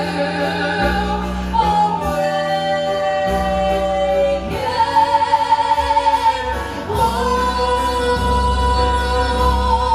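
Live piano-rock power ballad: singing in long held notes, one with a wavering vibrato in the middle, over keys, bass and drums.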